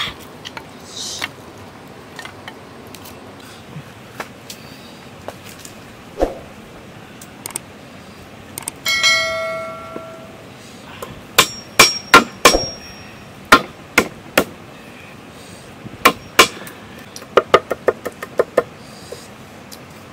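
Large machete-style knife chopping on a wooden board: scattered sharp chops, then a quick run of chops near the end as garlic is cut. About halfway through, a single metallic clang rings for about a second.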